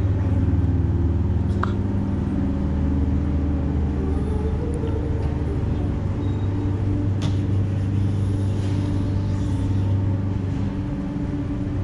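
Steady low mechanical drone of an Airbus A380 being pushed back from the gate by a tug, heard through the terminal glass, with a couple of faint clicks.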